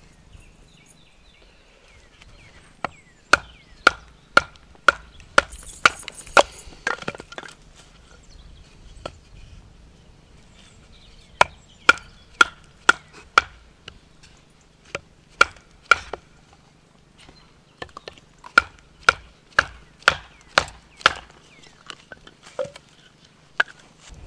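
Wood being chopped with a hand-held blade: sharp blows about two a second, in several bouts with short pauses between, each blow with a brief ring.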